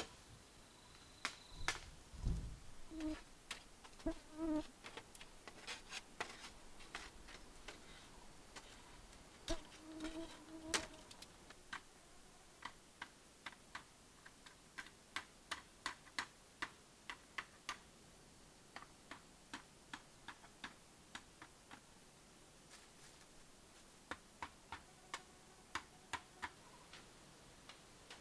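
Sharp clicks and knocks of bamboo slats being handled and fitted into a bamboo wall, irregular at first and then about one or two a second. Some knocks have a short pitched ring, and a few dull thuds come in the first few seconds and again around ten seconds in.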